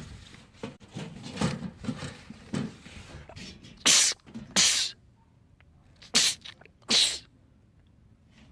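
A man sneezing four times, in two quick pairs, after a few seconds of quieter breathy build-up: a fit of repeated sneezes.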